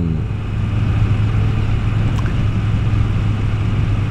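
Moto Guzzi V7 Stone's air-cooled V-twin running steadily at cruising speed, heard from the rider's seat over road and wind noise.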